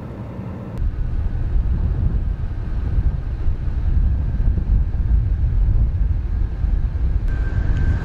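Wind buffeting the microphone: a heavy, even low rumble that sets in about a second in. A steady high tone joins near the end.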